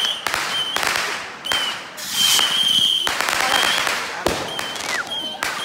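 Fireworks going off in a quick run of sharp bangs and crackles. A short high tone repeats under them every second or so.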